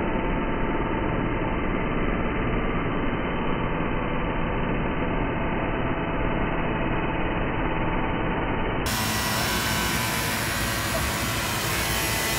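Steady mechanical running hum from the Jeep Cherokee's ABS hydraulic pump, run by a scan-tool-commanded brake bleed to force brake fluid and trapped air out through the open bleeder.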